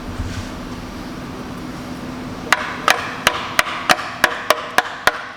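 Hammer tapping a flathead screwdriver wedged between a Duramax's factory steel oil pan and the engine, to break the pan's seal loose. About halfway through come nine sharp metallic taps, roughly three a second.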